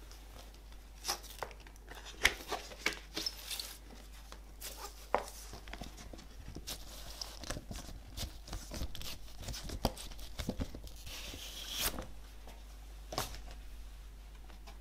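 Cardboard LP sleeve and paper handled by hand: a run of sharp taps, clicks and rustles. Then a vinyl record is drawn out of its inner sleeve, making long rustling, scraping slides with a few light knocks.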